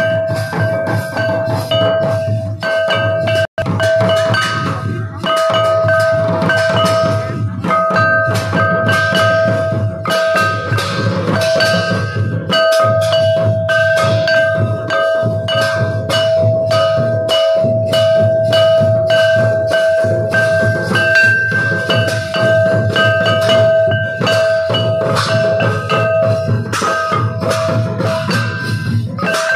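Santali folk dance percussion: a two-headed drum beaten in a fast, driving rhythm with clashing hand cymbals and a flat metal gong struck with a wooden beater, its ringing tone sustained over the beat. The sound cuts out for an instant about three and a half seconds in.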